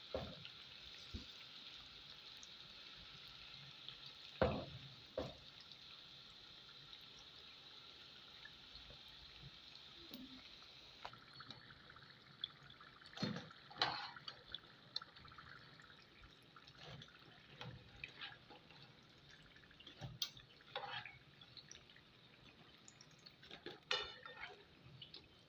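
Samosas deep-frying in hot oil, a steady sizzle, with scattered clicks and scrapes of a metal spoon and a wire spider strainer against the pan, most of them in the second half.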